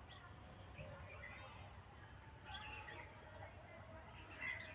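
Faint outdoor field ambience with scattered short bird chirps, a cluster of them about halfway through and more near the end.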